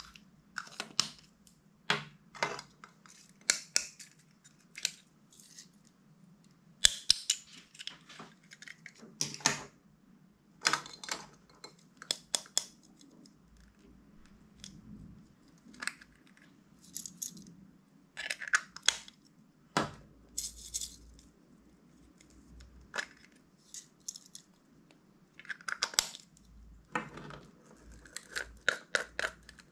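Clear slime being squeezed and worked by hand, giving irregular clusters of sharp clicks and pops with short pauses between them.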